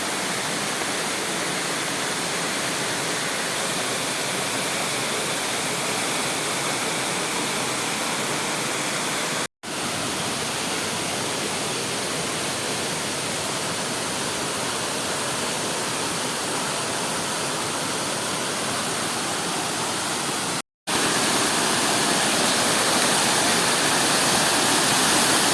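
Waterfall rushing: a steady, even hiss of falling water, broken by two very short silent gaps, about a third of the way in and about four-fifths of the way in, and a little louder after the second gap.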